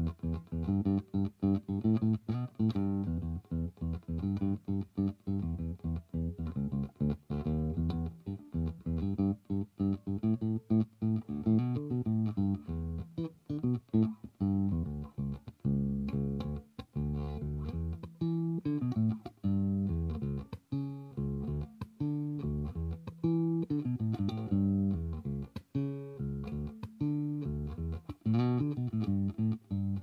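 1980 Yamaha Pulser Bass PB-600 electric bass played fingerstyle: a continuous bass line of short plucked notes with brief gaps between them.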